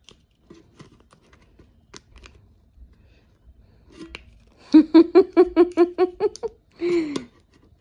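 Faint rustling and small clicks of paper money being handled and folded, then about five seconds in a person's voice makes a quick run of about a dozen short repeated syllables, ending in one longer falling vocal sound.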